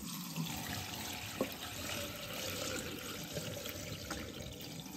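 Soaking water poured from a pot of soaked pinto beans through a plastic colander into a kitchen sink, a steady rush of water.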